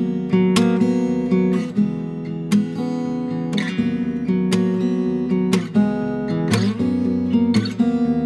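Background music: strummed acoustic guitar with regular strokes.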